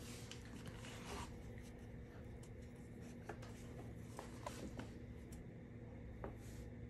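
Faint rustling and a few soft ticks of a crochet hook working yarn, over a steady low hum.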